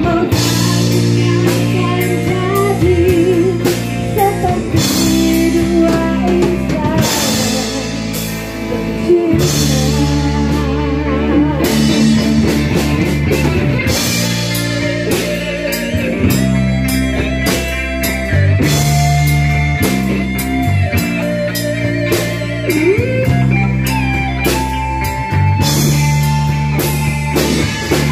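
Live rock band playing: drum kit, electric bass and electric guitars, with bass notes changing every second or two under a wavering melody line.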